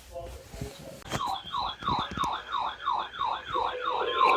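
A weather alert radio receiver sounding its siren-like alarm for a weekly test: a falling sweep repeated about three times a second, with a high warble over it, starting about a second in. About three and a half seconds in, a steady tone near 1 kHz joins it; this is the weather radio's 1050 Hz warning alarm tone.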